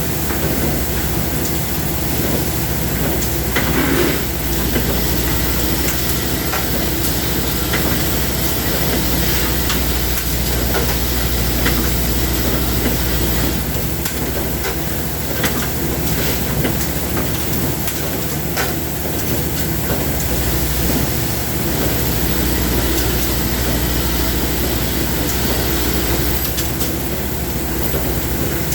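A machine running steadily with a constant low hum, scattered light clicks and knocks over it.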